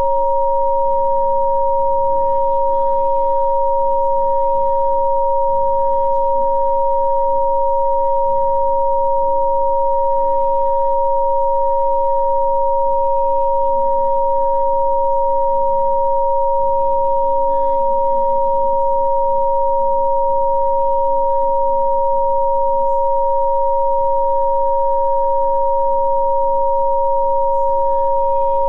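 Two steady, electronically generated sine tones, a lower and a higher one, held without change, as played in rife frequency therapy. Faint soft ambient music shifts slowly beneath them.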